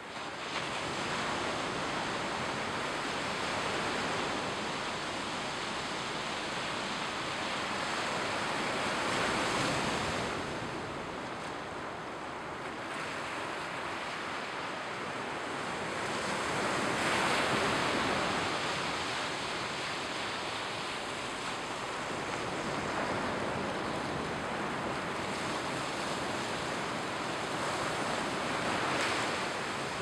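Mediterranean Sea waves washing against the shore, a steady rushing hiss that swells three times as waves break: about a third of the way in, just past the middle, and near the end.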